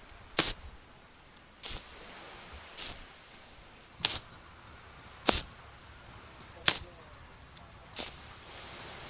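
Short, sharp swishing strokes close to the microphone, about one every 1.3 seconds, from ASMR ear-cleaning tools worked at a binaural ear, over a soft steady hiss.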